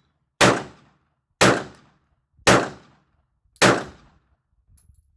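Four handgun shots fired about a second apart, each a sharp crack with a short fading tail.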